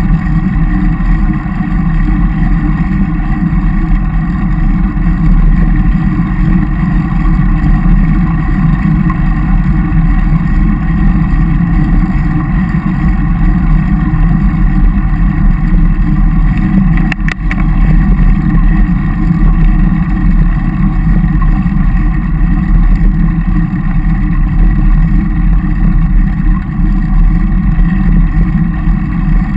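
Wind rumble on a bike-mounted action camera's microphone while riding a road bicycle, a loud, steady low noise, with a brief clatter about seventeen seconds in.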